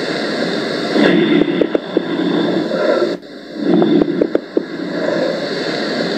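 Recorded lung sounds heard through a stethoscope: slow breaths, each a rushing noise dotted with many short crackles. These are crackles from fluid in the alveoli, of the kind heard in pulmonary edema.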